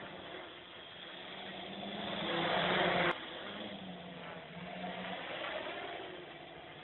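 Quadcopter's four brushless motors and propellers whirring in flight, their pitch shifting as it manoeuvres. A louder rushing swell builds about two seconds in and cuts off suddenly about a second later.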